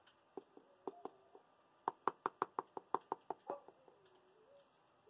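A few scattered light knocks, then a quick, even run of about ten sharp knocks, some six a second, which stops about three and a half seconds in.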